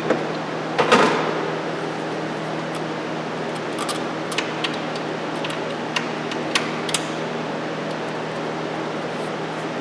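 Clicks and knocks of metal parts and hand tools as a cleaned engine part is refitted under the hood, with one louder knock about a second in and lighter clicks a few seconds later. A steady hum runs underneath.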